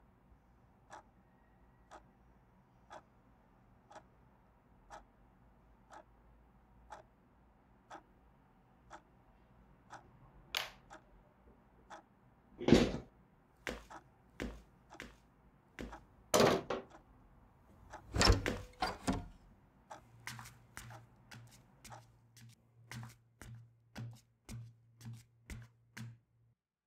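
A clock ticking steadily about once a second. From about ten seconds in come several loud knocks and thuds, then a low steady hum starts, with quick clicks over it near the end.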